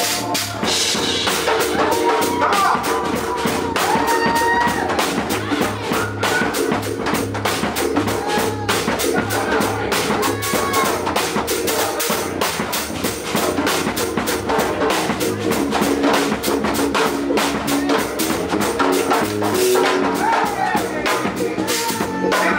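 Live drum kit played fast and busy, dense stick strokes on drums and cymbals, over sustained low notes from the rest of the band.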